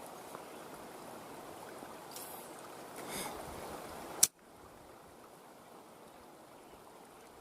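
Creek water running steadily, with a sharp click a little past four seconds in, after which the water is quieter.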